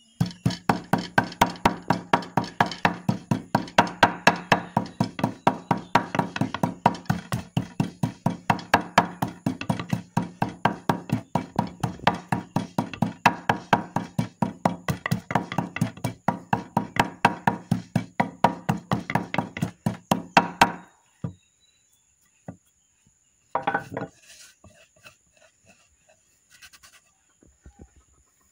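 Wooden pestle pounding a wet turmeric paste in a mortar: rapid, even thuds, about five a second, that stop suddenly about three-quarters of the way through. A single knock follows a few seconds later.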